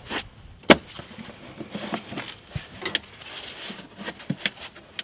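ABS wheel speed sensor cable being pulled out of its plastic wire-loom clips in a car's front wheel well: scattered clicks and rustling handling noise, with one sharp click a little under a second in.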